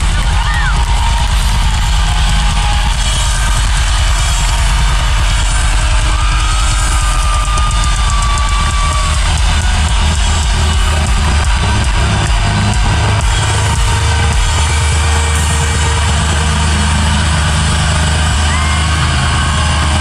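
Metalcore band playing live at full volume: distorted guitars, bass and drums, with a thin high tone rising over the music about six seconds in and holding for a few seconds.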